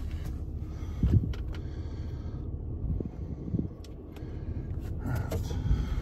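Ram 3500's 6.7-litre Cummins diesel idling, a steady low rumble heard inside the cab, with a few soft clicks as dash controls are pressed.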